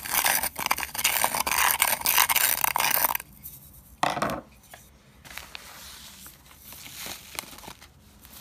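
Screwdriver scraping and raking loose granules of activated charcoal around the inside of a gas mask filter's metal canister, a rattling scrape full of small clicks for about three seconds. A short scrape about four seconds in, then faint rustling.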